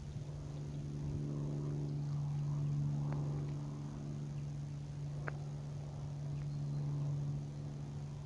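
A steady low hum with a few overtones, swelling slightly about three and seven seconds in, with two faint clicks about three and five seconds in.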